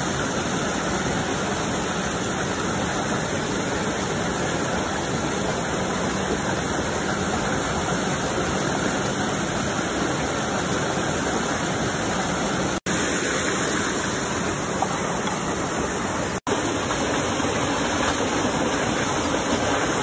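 Steady rushing noise of flowing water, as from a stream or small waterfall. It is broken twice by a momentary gap of silence in the second half.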